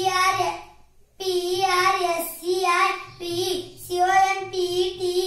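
A child's voice chanting in a sing-song tune, holding even notes in several short phrases with a brief pause about a second in. It is typical of reciting letter sounds and spellings aloud.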